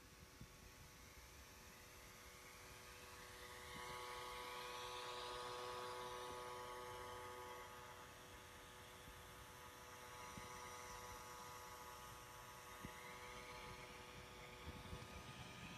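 Surface Pro 3 tablet's cooling fan running with a steady buzzing hum over the rush of its airflow. It grows louder about four seconds in and settles back a few seconds later. The owner takes this buzz, unlike a fan's normal whoosh, for a fan defect.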